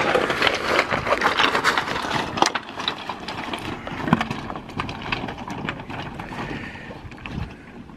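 Suzuki Jimny's tyres crunching slowly over loose rock and gravel, with many stones clicking and knocking. It is loudest in the first three seconds and fades after that.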